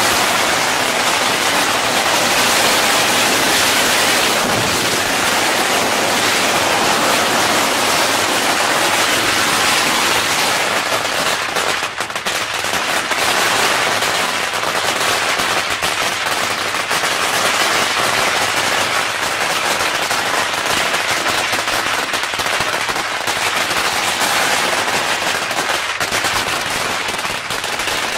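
A 250,000-piece string of firecrackers going off in one continuous, dense crackle of rapid small bangs, with no pause.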